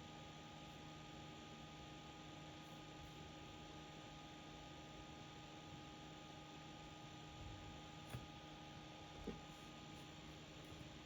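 Near silence: a faint steady hum and hiss, with two small clicks about 8 and 9 seconds in.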